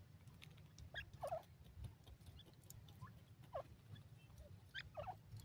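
Grey francolins giving quiet, short chirping calls: a handful of brief notes at irregular intervals, some sliding downward, over faint clicks.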